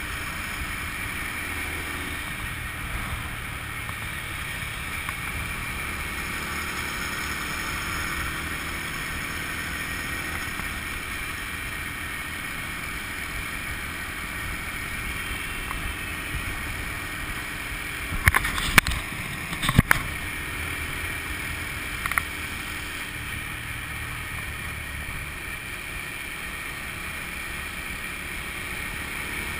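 Riding noise on a Honda motorbike: a steady mix of engine and wind rushing past, with a few sharp knocks about two-thirds of the way through.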